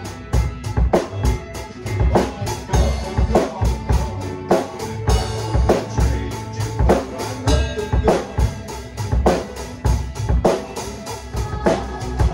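Pearl drum kit played to a steady rock beat, with kick drum, snare and cymbal hits, over a recorded song playing along.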